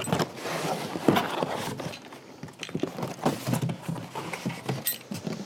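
Packaging being handled while a stroller is unboxed: rustling and crinkling, strongest in the first two seconds, with scattered knocks and taps of parts and cardboard.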